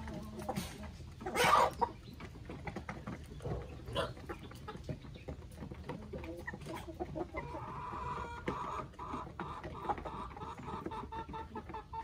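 A flock of hens and roosters clucking while feeding, with one loud call about a second and a half in and many short taps from pecking at the feed pan. From about two-thirds of the way through, a drawn-out clucking call continues.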